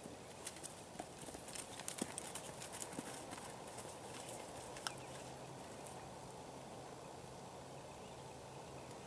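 Hoofbeats of a mare and her foal running across a soft dirt paddock: a quick, uneven run of hoof strikes in the first few seconds, loudest about two seconds in, then thinning out.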